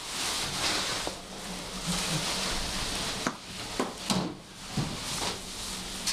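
Toilet paper rustling and tearing, then a string of sharp knocks from hands and knees hitting floor tiles as a person crawls on all fours.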